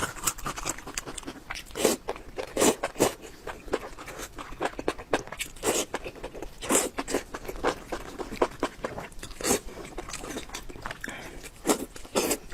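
Close-miked eating: a person biting and chewing crunchy food, with irregular crisp crunches, several louder bites standing out.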